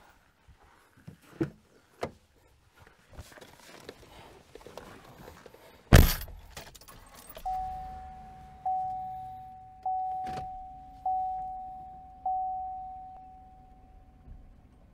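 Keys jangling with a few light clicks, then a pickup truck door slams shut about six seconds in. Soon after, the Chevrolet Silverado's warning chime starts dinging on one steady note, five dings a little over a second apart, each fading away, with a soft knock in between.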